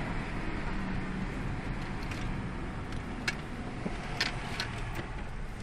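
Car driving, heard from inside the cabin: steady low engine and road noise, with a few short sharp clicks a little past the middle.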